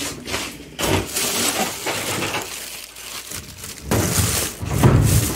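A plastic bag being rummaged through, rustling, with small hard items inside clinking against each other. The rustling grows louder about four seconds in.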